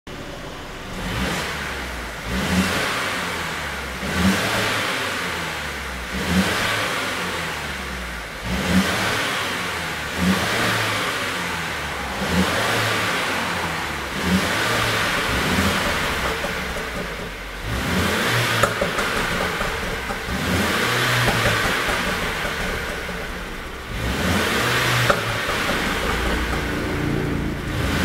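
The W213 Mercedes E300 4Matic's turbocharged 2.0-litre four-cylinder, heard at its exhaust tips, revved again and again about every two seconds, each blip climbing sharply and falling away. Sharp pops on the overrun come from a pop-and-crackle exhaust tune.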